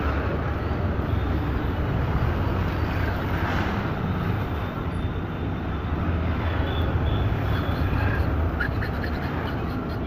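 Steady low rumble of street traffic. Near the end come a few faint scrapes of a flat hand file on a metal key blank.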